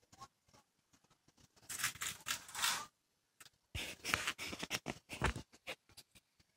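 Handling noise from a phone being moved: two spells of scratchy rubbing, each about a second long, with scattered clicks and taps around them.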